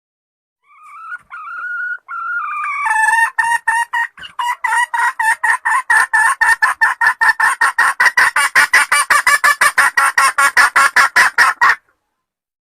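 Red junglefowl hen cackling: a few drawn-out calls, then a fast run of short, sharp clucks, about four or five a second, that stops abruptly.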